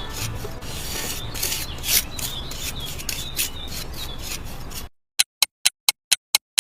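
Continuous scraping and rubbing with many short strokes. About five seconds in it cuts off abruptly, giving way to a run of evenly spaced sharp ticks, about four a second.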